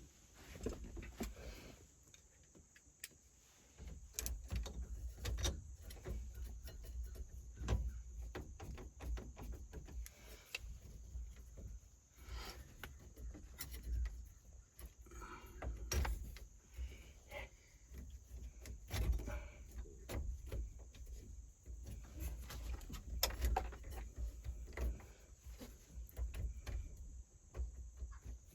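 Hand work on a truck's steering column: scattered small clicks, taps and light metal rattles of a tool and small parts being handled, with low thumps from hands and the column, and a few brief scrapes.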